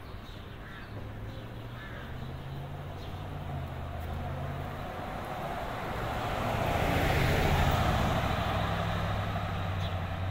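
A motor vehicle drives past on the street, its engine and tyre noise building to a peak about seven seconds in and then easing off, over a low traffic hum.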